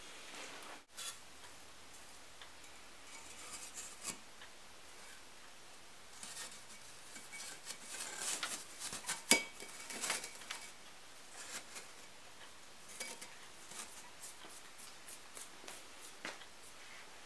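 Soft insulating kiln-brick pieces being set back into place around a new crucible in an electric glass furnace: light scrapes, taps and knocks of brick on brick, busiest in the middle with one sharper knock.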